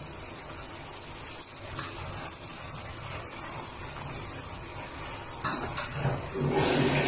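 Wooden spoon stirring and scraping penne in a metal pan while a creamy sauce goes in over the pasta, with a steady hiss underneath. About five and a half seconds in, a louder wet, rushing sound with a low hum starts.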